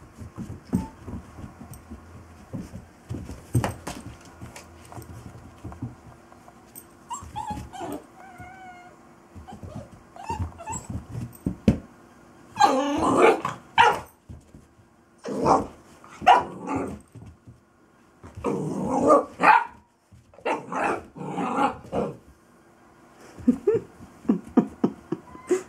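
Golden retriever puppy barking and growling in play, in five or six short loud bursts through the second half. Softer knocks and scuffling come before them.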